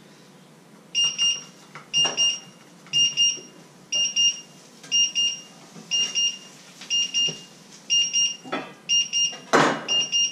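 An electronic alarm beeping: quick groups of two or three high beeps about once a second, starting about a second in. A few short noisy sounds come between the beeps, the loudest near the end.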